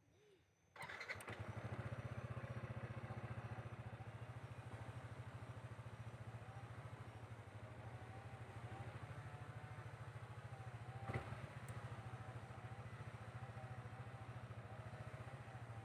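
Motorcycle engine running steadily, coming in suddenly about a second in, with one sharp knock about two-thirds of the way through.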